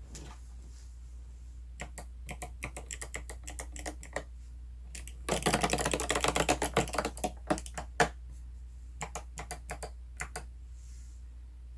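Typing on an 8BitDo mechanical keyboard (Xbox edition). Scattered keystrokes come first, then a fast run of typing lasting about two seconds in the middle, then a few slower single presses.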